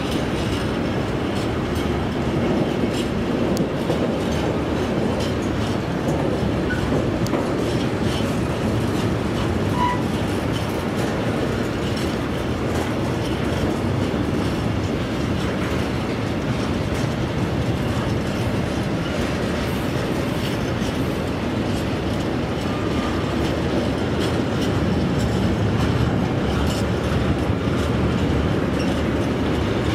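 Freight train of tank wagons rolling past at close range: a steady rumble of steel wheels on rails with light clicking over the rail joints.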